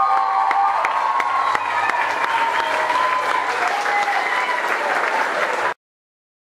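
Audience clapping, with a few high wavering tones held over the claps. The sound cuts off abruptly near the end.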